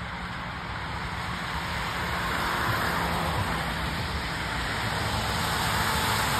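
Traffic on a wet road: tyres hissing on the wet surface, growing louder from about two seconds in as a pickup truck and a car come up and pass close by.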